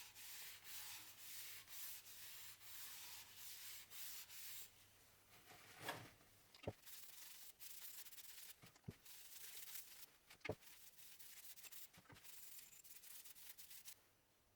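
Hand sanding of a turned wooden piece: quick, even rubbing strokes, about two a second, for the first few seconds, then fainter rubbing broken by a few light taps.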